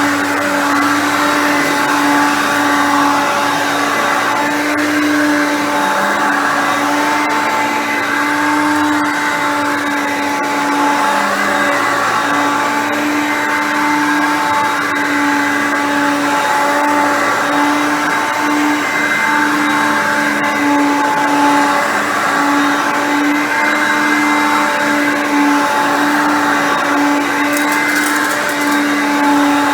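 Hoover Concept Two upright vacuum running steadily at its highest speed, its motor a loud screaming whine typical of these Hoovers. The brushroll is partially struggling, which the owner puts down to a worn belt.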